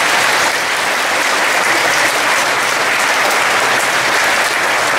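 Audience of students applauding steadily.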